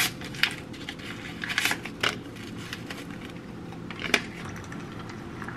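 Paper tea-bag wrapper being torn open and rustled, a few light clicks and crinkles, then one sharp tap about four seconds in, over a steady low hum.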